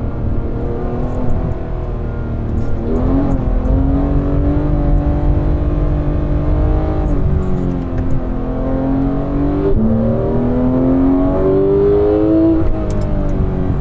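Porsche 991 GT3's naturally aspirated flat-six engine under load on track, its pitch climbing with the revs and dropping back twice, about seven seconds in and again near the end, as the driver shifts or lifts.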